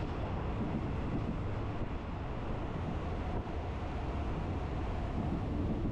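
Steady low rumble and running noise of a moving passenger train, heard from aboard.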